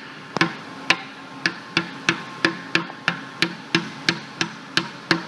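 Hammer lightly tapping the side port of a 4-inch Protec Arisawa pressure vessel down to knock it out of its seat once the spiral ring is off: a steady run of about fourteen sharp taps, roughly three a second.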